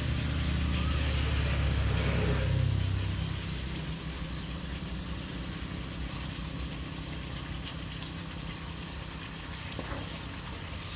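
Pork slices sizzling in hot oil in a wok, with small crackles of spatter. Over the first three seconds a low engine hum sounds alongside and then fades away.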